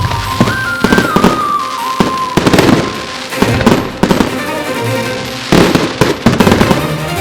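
Fireworks going off in quick succession, a steady run of sharp bangs and crackles, with music playing under them.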